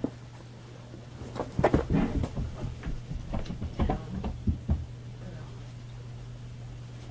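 Scattered soft thumps and taps of a dog and a person moving over a carpeted floor, over a steady low hum.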